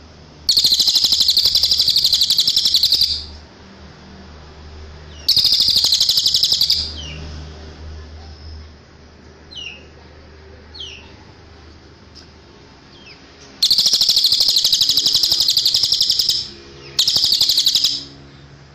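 Cililin songbird singing: four bouts of very fast, even, high trilling, each about one to three seconds long, with a few short falling chirps in the gaps between them.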